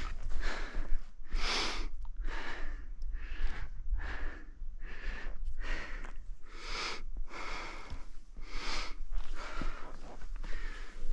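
A hiker's heavy, rapid breathing close to the microphone, a breath about every two-thirds of a second, labored from climbing steep mountain terrain.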